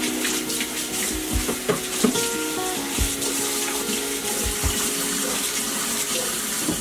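Kitchen faucet running in a steady stream into a stainless steel sink while a clear plastic storage bin is rinsed and wiped under it, the water splashing off the bin. Background music with held notes plays underneath.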